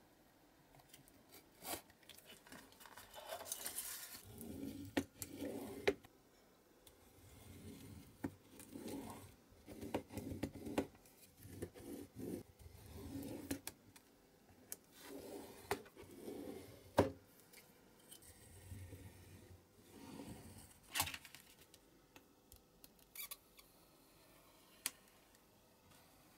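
Craft knife cutting printed card along a steel ruler, in irregular scraping strokes, with paper rustling and several sharp taps and clicks as the ruler and card are handled.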